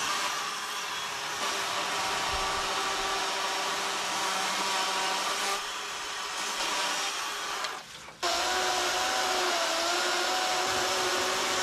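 Battery-powered electric chainsaw running as it cuts a pine limb, a steady motor whine. It stops briefly about eight seconds in, then runs again with its pitch wavering as the chain bites into the wood.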